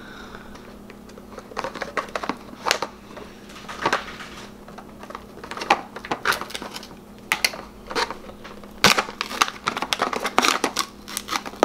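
Pringles can being opened by hand: the plastic lid and cardboard tube tapped and handled, then the foil seal peeled, giving a run of irregular clicks, taps and crackles with a sharp snap about nine seconds in.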